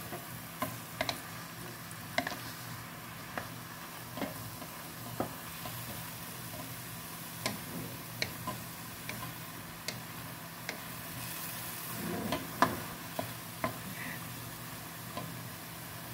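Wooden spatula stirring and tossing strips of bottle gourd (opo) in a metal frying pan, knocking and scraping against the pan at irregular intervals over a faint sizzle of the vegetable frying. The knocks come about once a second, with a louder cluster around two-thirds of the way through.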